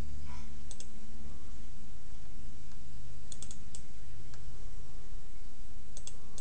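Computer mouse clicks, a single one early and a quick cluster of double-clicks past the middle as folders are opened in a file browser, over a steady low electrical hum.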